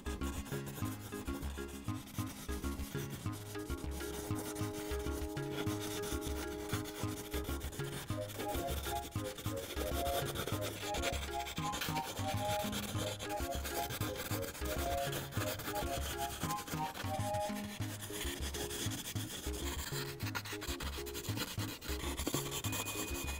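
Prismacolor colored pencil scratching over paper in many repeated shading strokes. Soft background music with a regular low beat and a light melody plays under it.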